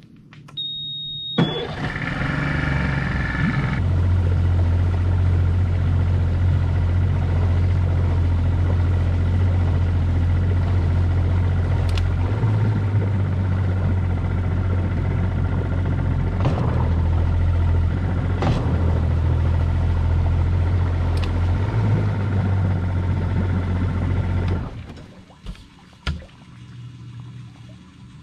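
Small boat outboard motor starting after a short high beep, then running steadily under way for about twenty seconds before it is shut off.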